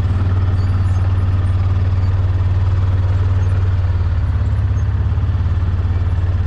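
Hisun Axis 500 UTV's engine idling steadily, with a constant low running note.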